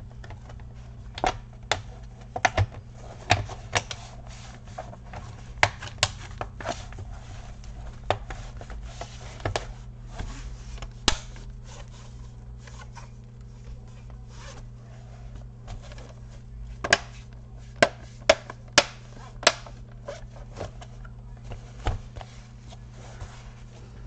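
Plastic snap clips of an HP 250 G5 laptop's bottom case clicking into place as the case is pressed shut around its edges: a series of sharp clicks and taps, with a quick run of five loud ones about two thirds of the way in.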